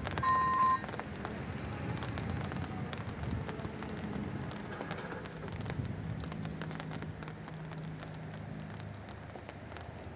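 Level-crossing electronic warning bell ringing in short repeated tones, cutting off less than a second in as the crossing's warning ends and the barriers go up. After it, a steady noisy outdoor background with a faint low hum.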